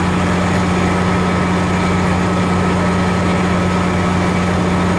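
MARC commuter train's diesel locomotive running steadily beside its passenger cars: a loud, even engine drone with a low hum and a faint steady high whine.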